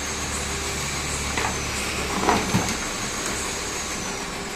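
Steady machine running noise with a faint high whine that dips and recovers about every two seconds, and a couple of brief knocks near the middle.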